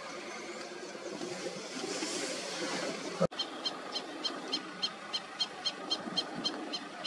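Outdoor bush ambience, steady hiss with no voices, that breaks off abruptly about three seconds in; after the break a high chirp repeats evenly about three or four times a second.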